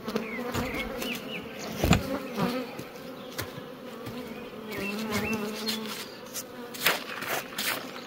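Honeybees buzzing steadily around open hives, with a few sharp knocks about two seconds in and near the end.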